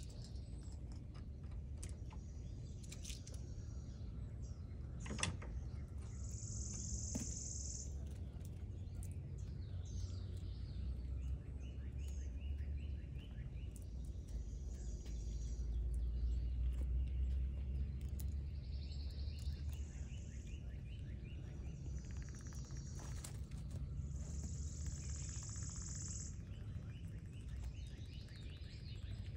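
Outdoor ambience of small birds chirping, with a couple of high trills about two seconds long, over a steady low rumble; a few small sharp clicks.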